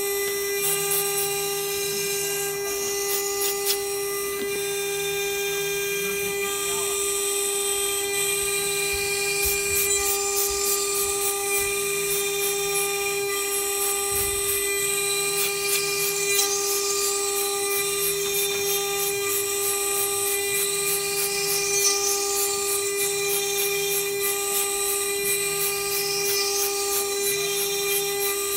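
BGA rework CNC station's high-speed spindle grinding down an iPhone 7 logic board: a steady high whine with fast ticking, and a low hum that comes and goes about once a second.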